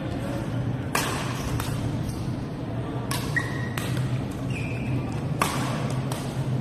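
Badminton racket hitting a shuttlecock in overhead smashes: sharp cracks about every two seconds, coming in pairs, ringing briefly in a large hall.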